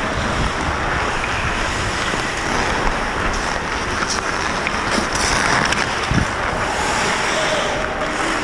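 Steady rushing wind noise over a helmet camera's microphone as the wearer skates, mixed with the hiss and scrape of ice skate blades on the ice. A few faint clicks sound around the middle.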